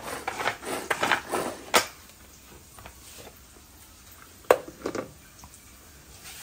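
Plastic rattling and scraping from a pull-cord manual food chopper shredding boiled chicken, lasting about two seconds and ending in a sharp click. A couple of sharp plastic clicks follow as its lid comes off.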